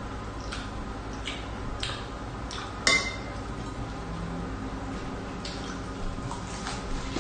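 A metal fork and spoon clinking and scraping against a stainless steel pot, with one sharp ringing clink about three seconds in. Soft rustles of lettuce leaves being handled, and a crisp bite into a lettuce wrap near the end.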